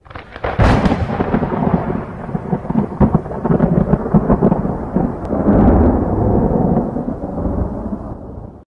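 A loud, thunder-like rumbling noise full of sharp cracks, with a big crack about half a second in; it fades over the last couple of seconds, then cuts off suddenly.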